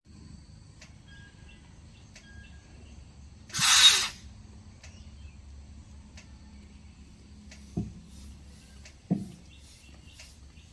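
A moon bear (Asiatic black bear) sneezing once, a short sharp breathy burst about three and a half seconds in. Two brief low thumps follow later, over faint chirps in the background.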